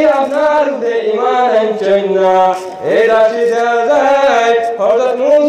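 A man chanting in a sung, melodic style. He holds long notes that waver and slide in pitch, with short breaks between phrases.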